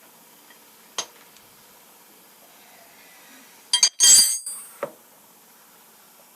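Metal clinking against metal as tools or steel parts are handled: one sharp click about a second in, then a cluster of loud, ringing clinks around four seconds in and a smaller knock just after.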